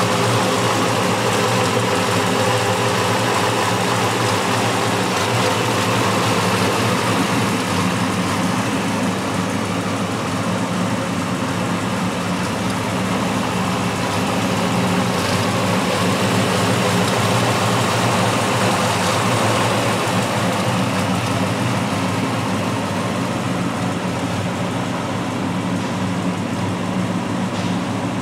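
1957 Chevrolet pickup's engine idling steadily, with no revving.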